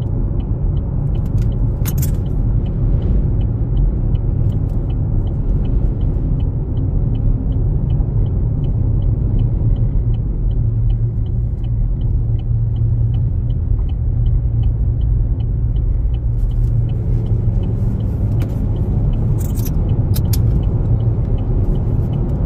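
Steady low rumble of a car driving at road speed, heard from inside the cabin, with a faint, regular ticking of about three ticks a second. A few sharp clicks come about two seconds in and again near the end.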